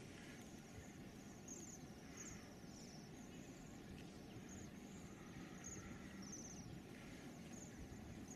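Faint, short high-pitched chirps of small songbirds, coming irregularly about once a second, over a low steady outdoor rumble.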